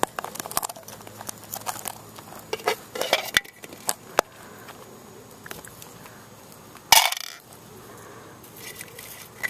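A small plastic toy bin and its lid being handled, with scattered light clicks, taps and clinks. About seven seconds in there is one louder, brief rustling burst.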